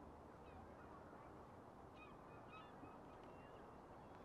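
Geese honking faintly: a few short calls about halfway through, over a steady low background hiss.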